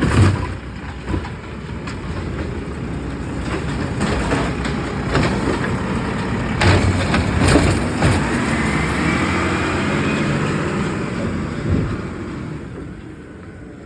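Garbage truck running steadily, with a few sharp knocks and clanks about halfway through. A whine then rises and holds for about five seconds before fading.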